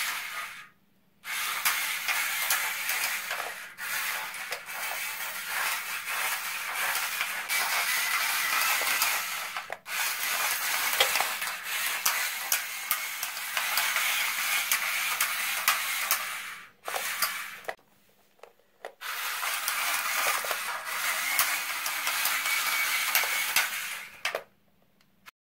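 Antweight shufflebot walking on a concrete floor: its gear-motor-driven aluminium legs scrape and clatter in long runs, stopping briefly twice. It struggles because its middle leg sits too low and doesn't clear the ground enough.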